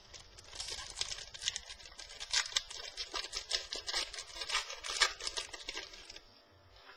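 Football trading cards being handled and flipped through by hand: a quick run of crisp clicks and rustles that stops about six seconds in.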